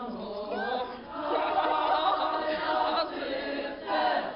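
A group of women singing together without accompaniment, many voices at once, fuller and louder from about a second in.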